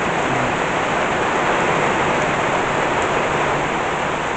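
Torrential tropical rain pouring down: a steady, even hiss of a deluge.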